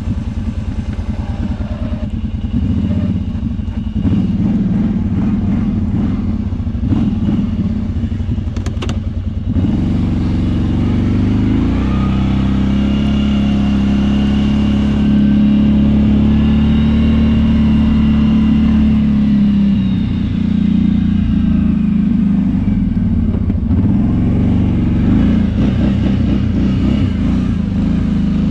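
Kawasaki Brute Force 650i ATV's V-twin engine running while plowing snow. The engine note rises and falls with a few sharp knocks in the first third, then holds steady at higher revs for about ten seconds before easing off.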